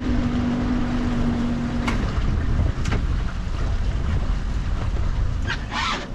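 Fishing boat's motor running at trolling speed, with wind noise on the microphone. A steady hum runs through the first two seconds, a couple of sharp clicks follow, and a short higher sound comes near the end.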